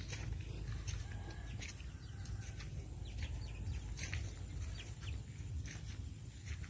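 Birds chirping in short, scattered calls, over a steady low rumble.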